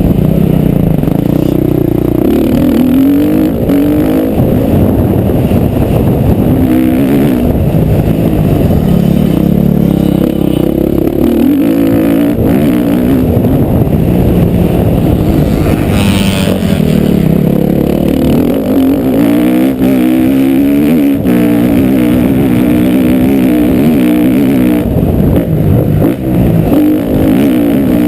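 Motocross bike engine revving hard, its pitch climbing and dropping again and again as the throttle is worked through the track. A brief sharp clatter cuts through about sixteen seconds in.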